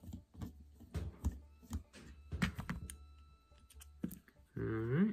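Small metal clicks and knocks of a Phillips screwdriver working the float bowl cover screws out of an outboard carburetor and of the loose screws being set down, then a short rising hum near the end.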